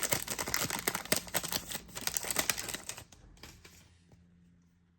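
Trading cards and their foil pack being handled: a quick run of crisp clicks and crinkling rustle that fades out about three seconds in.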